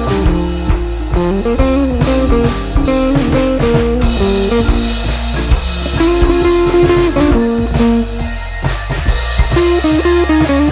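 Background music: guitar over a drum kit with a steady beat, in a bluesy rock style.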